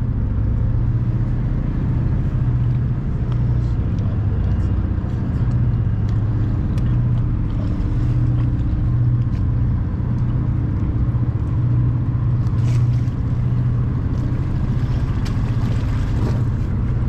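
Outboard motor of a small inflatable boat running steadily at low speed, a constant low hum with a gentle pulse.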